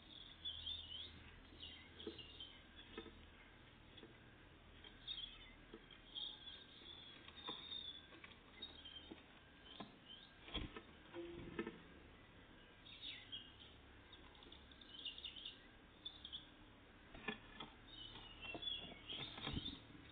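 Small songbirds, tits, chirping and calling in short scattered notes. A few sharp knocks are heard in the middle and near the end.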